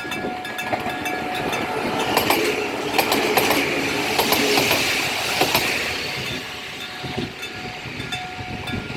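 Electric-bell level crossing warning bell (電鐘式) ringing with repeated strokes while a train passes over the crossing. The train's wheel clatter and rail noise are loudest from about two to six seconds in, then fade back under the bell.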